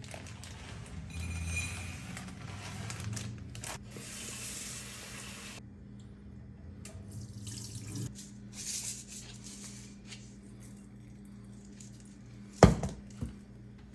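Water running from a tap into a sink for a few seconds, then cut off, with a little splashing afterwards. Near the end a sharp knock, the loudest sound, then a smaller one.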